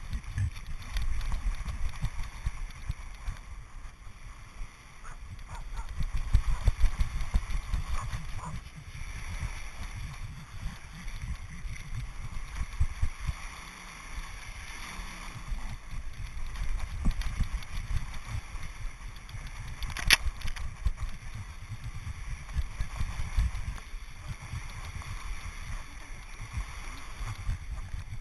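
Wind rumbling unevenly on the microphone of an action camera worn on a pug's back, over waves washing on the shore. A single sharp click about twenty seconds in.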